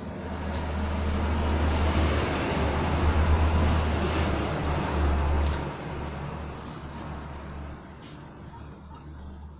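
A motor vehicle passing by: a low rumble that swells over the first couple of seconds, holds, drops off sharply about five and a half seconds in, then fades away.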